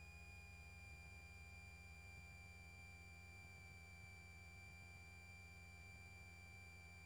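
Faint steady electrical whine on the aircraft's intercom audio feed: one high tone with fainter overtones, drifting very slightly lower, over a low hum.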